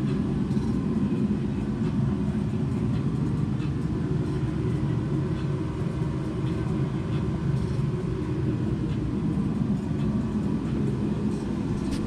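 Steady low rumble, like a running motor or engine.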